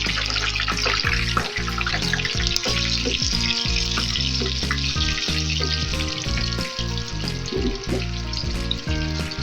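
Food sizzling in hot oil in a pan. The sizzle starts suddenly at the outset and runs on, a little weaker in the second half. Background music plays throughout.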